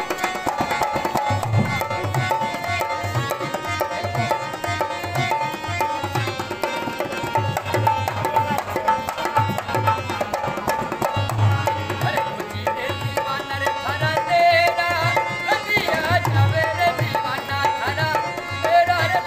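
Folk accompaniment to a kathputli puppet show: a harmonium holding steady reed tones over the regular beat of a hand drum. A wavering, gliding melody line joins about fourteen seconds in.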